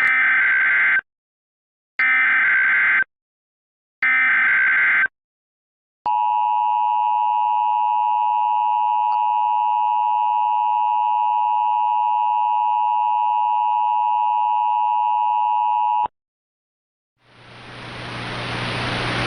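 Recreated Emergency Alert System tones: three one-second bursts of SAME header data screech, two seconds apart, then the steady two-tone EAS attention signal held for about ten seconds and cut off abruptly. About a second later, a hiss with a low hum fades in.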